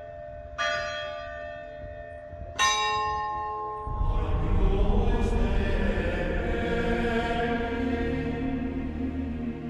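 A church bell struck twice, about two seconds apart, each stroke ringing on and slowly dying away. About four seconds in, sustained choral music comes in and continues.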